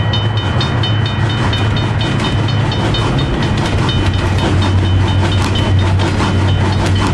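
Railway level-crossing bell ringing rapidly while a train runs past with a steady low rumble. The wheels click over rail joints more and more plainly as the train goes by.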